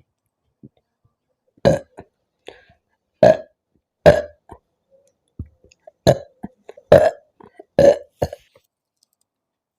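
A person burping from gulped Mountain Dew soda. There are about six loud, short burps at irregular gaps of roughly a second, with a few fainter ones in between.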